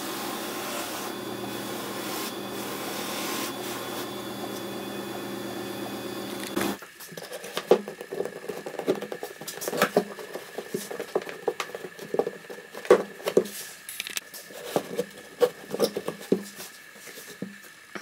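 A shoe-repair finishing machine runs steadily while the sole edge of a leather Chelsea boot is held against its spinning abrasive wheel. It cuts off abruptly about seven seconds in. What follows is a run of irregular knocks, taps and rustles as the boots are handled on a rubber mat.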